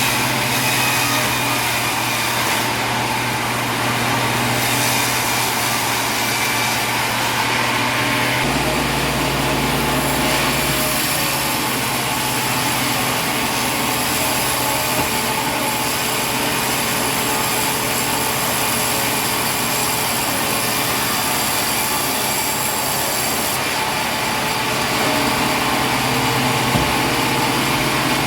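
A motor running steadily, with shifts in its low hum about 8 seconds in and again near 24 seconds.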